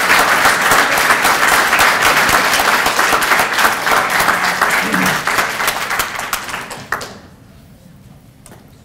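Audience applauding, a dense clatter of many hands clapping that dies away about seven seconds in, with a few scattered claps after.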